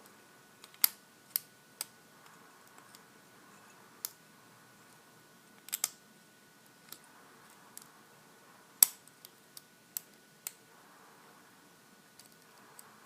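Scattered sharp clicks, about a dozen at irregular intervals, from a lock pick and tension tool working in the keyway of a Master Lock 410 lockout padlock.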